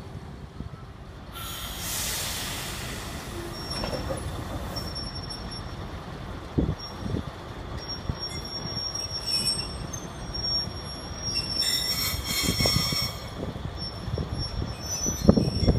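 Railroad turntable turning with a locomotive aboard: steady low rumble with high, thin metal squeals that come and go. There is a hiss lasting about three seconds near the start, and a few sharp clunks, the loudest near the end.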